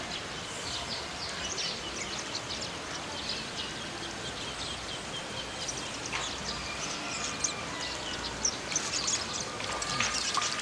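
Small birds chirping in quick, repeated short notes over a steady outdoor background noise, with a few sharp clicks near the end.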